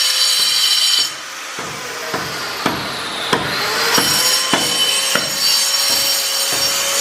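Electric angle grinder cutting slate stone with a high whine and grinding hiss that cuts off about a second in. Then come sharp knocks about every half second, while the grinder's whine falls and rises again.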